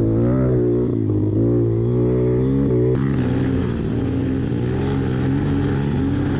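Small 110 cc pit bike engines running while riding, the engine note rising and falling with the throttle. The sound changes abruptly about three seconds in.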